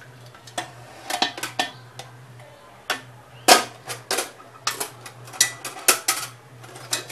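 Steel pot-lifter tongs clicking and clinking against a steel steaming vessel as it is gripped and handled, an irregular string of sharp metal clicks, the loudest about three and a half seconds in, over a low steady hum.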